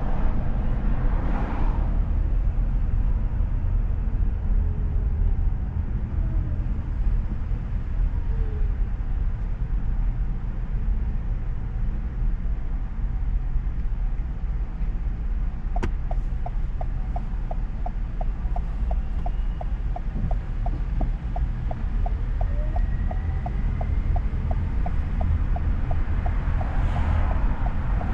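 Steady low road and engine rumble from inside a moving car. About halfway through there is a click, then a turn signal ticking evenly, a couple of ticks a second.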